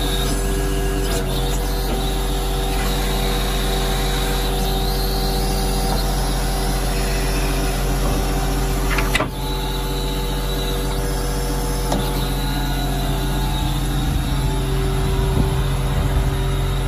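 Caterpillar 3126 turbo-diesel of an M1084A1 6x6 truck idling steadily, with a short knock about nine seconds in.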